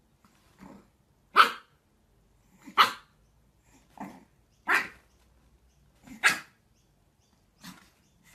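Pug puppy barking at its own reflection in a mirror: short single barks about every second and a half, four loud ones with quieter barks in between.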